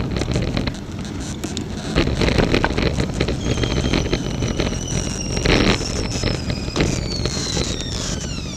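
Road bike riding along with road rumble and wind on the microphone, while many sharp clicks and knocks come from the bike. The clicking is of unknown cause, and the bigger knocks come from a rattling top-tube bag. Partway through a thin high whine sets in, falls slowly in pitch and then drops faster near the end.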